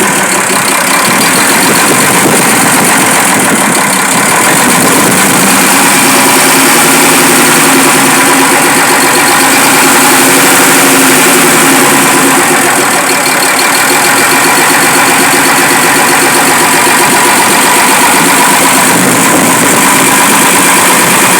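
Fiat 190 heavy truck's diesel engine idling steadily, loud and close, running again after three years without being started.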